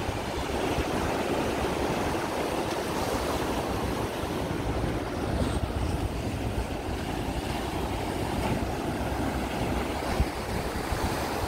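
Rough sea surf breaking and washing over shoreline rocks, a steady rushing, with wind buffeting the microphone in low rumbles.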